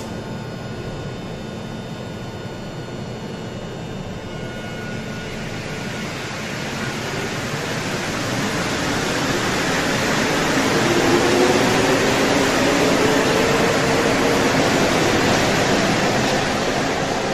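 Concarril NM-83A rubber-tyred metro train pulling out of an underground station. A whine rises steadily in pitch as it gathers speed, over a growing rush of running noise that gets louder through the middle and stays loud to the end.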